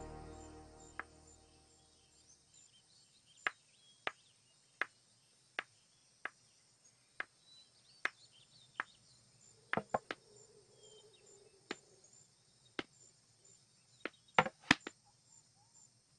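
Footsteps on a wooden floor: single sharp steps at a slow walking pace, with a few quicker steps near the end. A music cue fades out in the first second.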